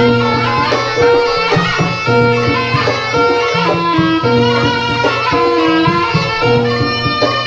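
Live jaranan accompaniment: Javanese gamelan music, with kendang drum strokes under a repeating figure of ringing pitched tones.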